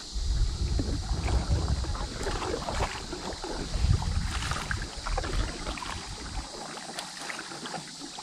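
Kayak paddle strokes splashing and dripping in lake water, with wind buffeting the microphone as a low rumble that drops away about two-thirds of the way through.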